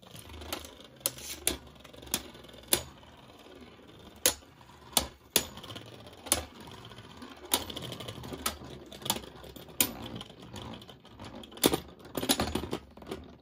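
Judgment Joker and Fafnir Beyblade Burst spinning tops whirring in a plastic stadium, with sharp irregular clicks as they strike each other and the stadium wall, about one hit a second, and a quick rattle of hits near the end.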